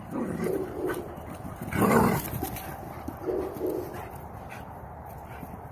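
Dogs vocalizing in rough play: several short, low grumbles, with a louder one about two seconds in.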